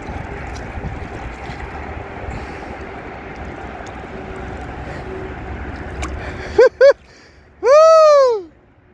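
Water splashing and churning as a hooked fish thrashes at the surface beside a kayak. Near the end come two short rising chirps and then a loud high-pitched call that rises and falls.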